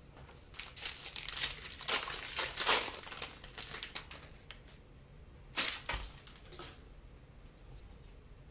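Foil wrapper of a Panini Prizm trading-card pack crinkling and tearing as it is ripped open by hand. The crackling is loudest two to three seconds in, with one more sharp crinkle a little past halfway.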